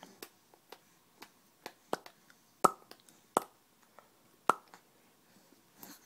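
A string of short mouth pops and tongue clicks made as silly noises, about a dozen at irregular spacing, with three louder pops in the middle.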